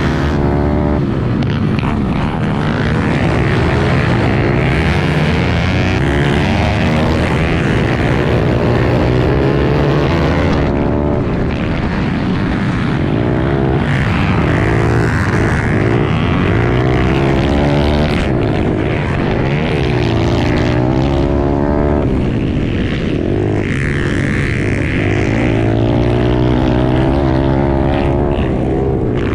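Pit bike's small single-cylinder engine ridden hard at race pace, its pitch repeatedly rising and falling as the throttle is worked through the corners and straights, with other pit bikes' engines close by.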